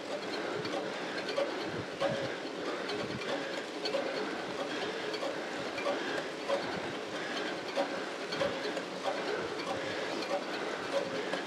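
Road bike climbing a steep gradient under hard effort: the rider's rhythmic heavy breathing over the running noise of the chain and tyres, with a short pulse repeating about twice a second.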